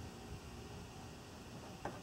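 Faint steady background hiss and low rumble, with a single light click near the end.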